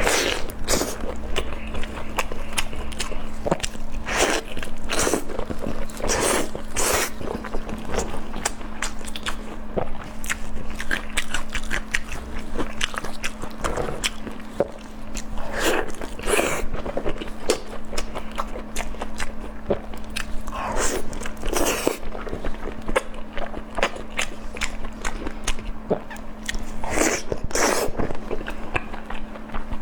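Close-miked eating: a person biting and chewing food fast, with frequent wet clicks and crunches. A steady faint hum runs underneath.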